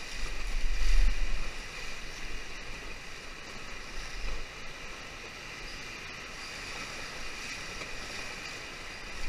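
Whitewater of a river rapid rushing in a steady hiss, with a loud low rumble on the microphone for the first second and a half.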